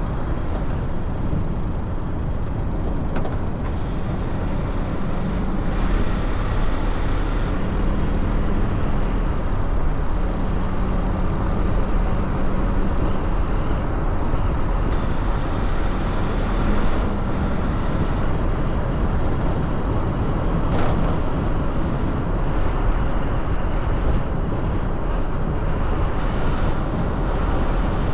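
Steady road and engine noise of a car being driven, with a low droning tone that comes and goes several times in the middle.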